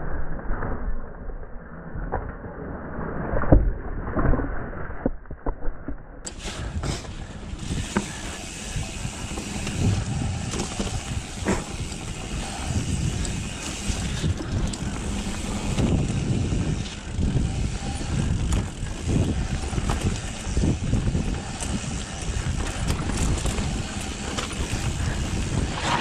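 Mountain bike riding down a dirt trail: steady tyre rumble with frequent rattling knocks over bumps and roots, and wind noise on the microphone. The sound turns brighter and hissier about six seconds in.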